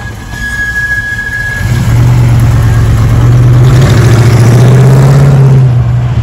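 1969 Chevrolet Camaro SS's 350 small-block V8 pulling away and accelerating, its exhaust swelling to a loud, deep rumble about two seconds in, holding with a slowly rising pitch, then starting to fade near the end as the car moves off.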